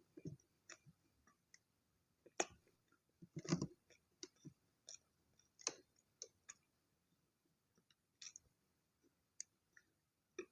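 Close-up eating sounds of chocolate toast being chewed: irregular soft chewing and wet mouth clicks, with a few louder chews or swallows about 2.5, 3.5 and 6 seconds in.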